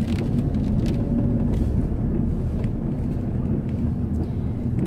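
Car engine and road noise heard from inside the cabin: a steady low rumble and hum as the car moves slowly through a car park.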